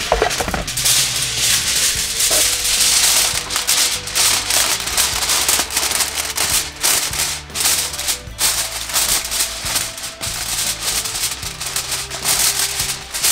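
A sheet of Reynolds Wrap aluminium foil crinkling and rustling as it is handled and spread over a roasting pan.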